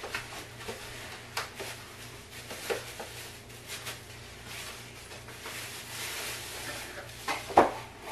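Hands rustling and handling packaging in a cardboard box: sheets of paper and plastic wrap shuffled, with scattered light knocks and one sharper knock near the end.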